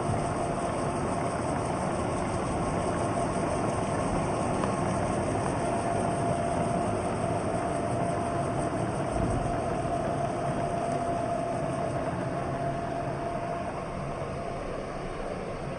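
Robot vacuum cleaner running, a steady motor hum and brush noise with a thin whine held at one pitch, easing off slightly near the end.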